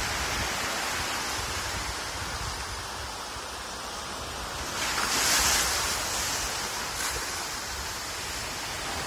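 Sea waves washing up over a sandy beach and around rocks: a steady surf hiss that swells as a wave breaks about five seconds in, then settles again.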